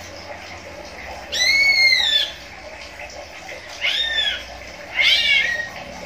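Caged cucak ijo (green leafbird) giving three calls, each under a second long, rising then falling in pitch.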